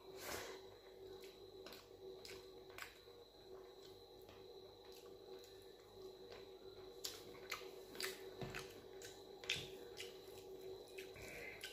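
Close-miked sounds of eating dal and rice with the fingers: chewing and mouthing food, with soft irregular clicks scattered throughout, over a faint steady hum.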